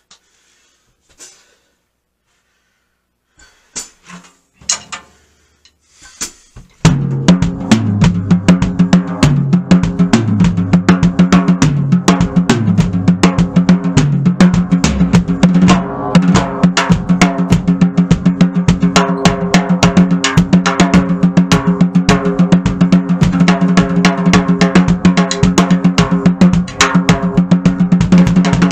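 Acoustic drum kit: a few faint taps, then about seven seconds in a loud, fast drum solo starts, with rapid strokes on snare and toms over the bass drum and cymbals.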